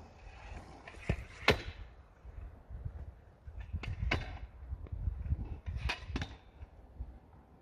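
Stunt scooter clacking on asphalt: about seven sharp hits of the deck and wheels landing and feet striking the deck during flatland tricks, the loudest about a second and a half in, with a cluster near four seconds and a pair near six, over a low rumble.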